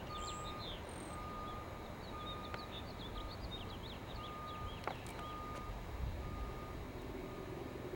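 A vehicle's reversing alarm beeping steadily, about once a second, with birds chirping over a low background rumble.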